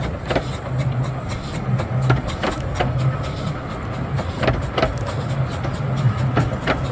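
Passenger coaches of a 15-inch-gauge railway train rolling past on the rails: a steady low rumble with irregular sharp clicks from the wheels running over the track.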